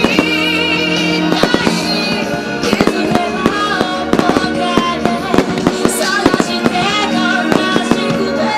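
Aerial firework shells bursting in quick succession, a steady stream of sharp bangs and crackles, heard together with music.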